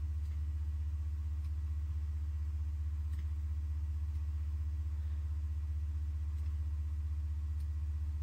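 Steady low electrical hum, mains hum picked up by the recording chain, with a fainter steady tone above it. There is one faint click about three seconds in.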